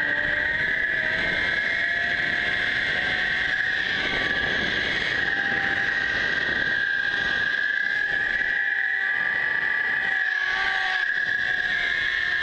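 Zipline trolley's pulley wheels rolling along the steel cable at speed: a steady high whine with fainter tones that drift slowly in pitch, over the rush of wind on the microphone.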